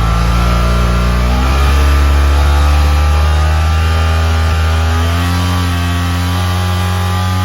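BMW F800R's parallel-twin engine running through a Delkevic oval carbon aftermarket silencer. It idles, is raised to a higher steady speed about a second and a half in, and settles back down about five seconds in.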